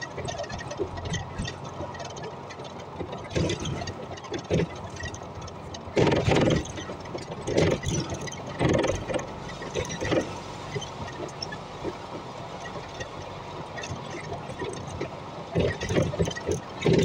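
Volvo hybrid city bus driving, heard from the driver's cab: steady running noise with irregular knocks and rattles, the loudest about six seconds in.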